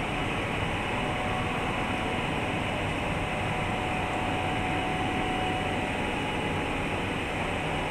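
Steady hum and hiss of a large factory hall's machinery or ventilation, with a faint steady tone running through it.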